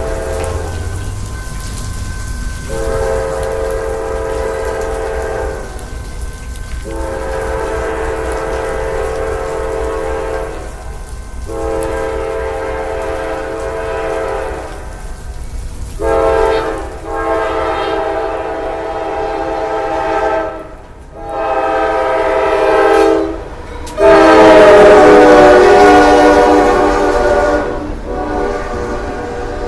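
Freight locomotive's air horn sounding a series of long blasts, with one short blast among them. The last blast is the loudest, and its chord drops in pitch as the locomotive passes (Doppler shift).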